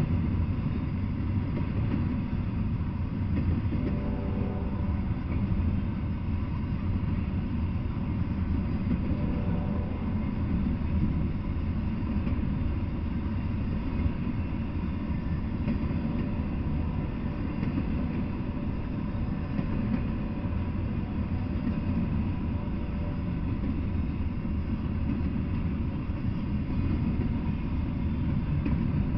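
Double-stack intermodal freight train rolling past: a steady, unbroken noise of steel wheels running on the rails, with no let-up.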